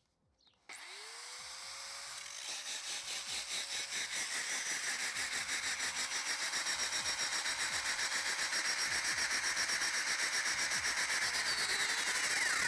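Kress angle grinder starting up with a rising whine and running with no load, its cutting disc spinning free. The sound grows louder and pulses rapidly, then cuts off sharply at the very end.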